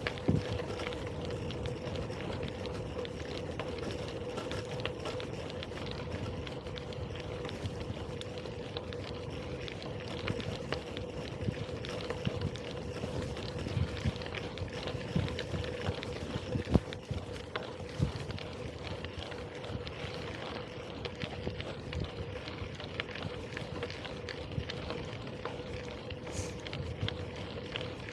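Gravel bicycle riding over a rough surface: steady tyre rumble with a constant hum, frequent knocks and rattles from the bike, and wind on the microphone.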